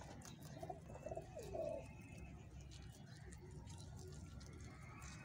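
Domestic pigeon cooing faintly, a few short coos about a second in, over a steady low hum.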